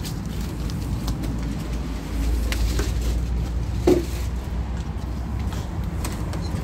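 Handling noise on a phone microphone as someone climbs in through an open uPVC window: a steady low rumble with scattered light clicks and knocks, and one brief sharper sound about four seconds in, the loudest moment.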